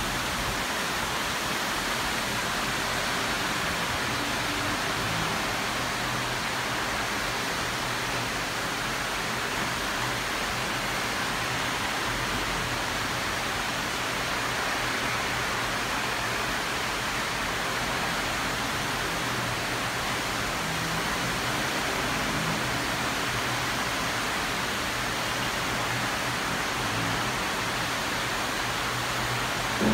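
Heavy tropical rain pouring down in a dense, steady hiss.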